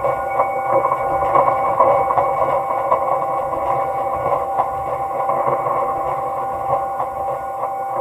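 Ambient generated music: a steady drone of several held tones over a dense, shimmering wash, with no beat.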